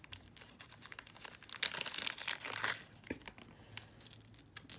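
Crinkling of a thin plastic bag being handled around a strand of beads, with scattered small clicks; the crinkling is loudest and densest from about a second and a half in to about three seconds.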